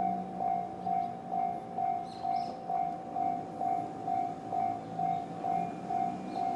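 Japanese railway level-crossing alarm sounding the JR standard electronic bell: a single ringing tone repeated evenly, a little over two strikes a second.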